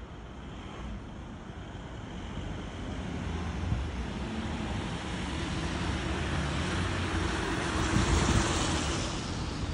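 A road vehicle passing close by: low engine rumble and tyre hiss build up over several seconds, are loudest near the end, then begin to ease off.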